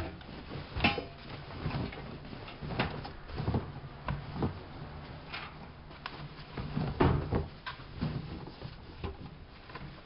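Whirlpool AWO 5346 washing machine running: a steady low hum with irregular knocks and clunks, the loudest about one second in and about seven seconds in.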